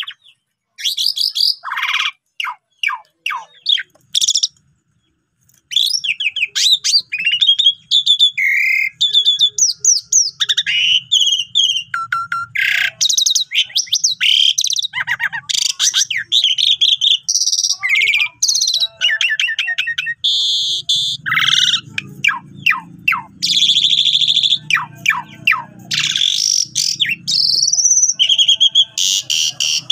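Asian pied myna (jalak suren) singing loudly in full song: a varied run of whistles, gliding notes, harsh rasps and chatter. There is a short pause about four to five seconds in.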